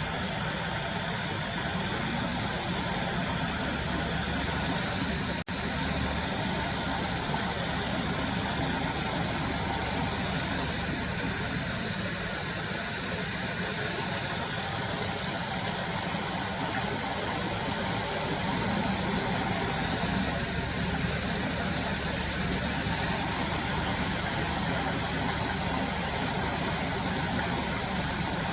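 Car engine idling steadily, with short high-pitched chirps recurring every second or two over it.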